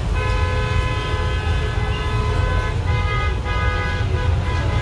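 A steady mechanical drone: a sustained, many-toned hum over a constant low rumble, dipping briefly twice.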